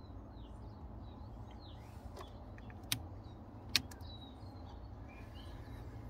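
Small birds chirping in short, falling calls over a steady low rumble, with two sharp clicks about three and four seconds in.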